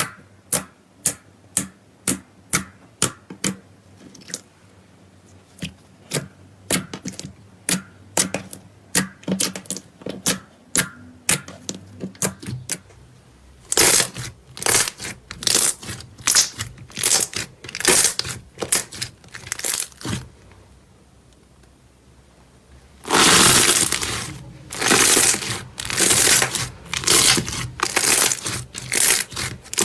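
Slime being pressed and played with by hand: sharp popping clicks, about two a second, for the first half, then louder crackling, crunchy squishes in bursts after a short pause.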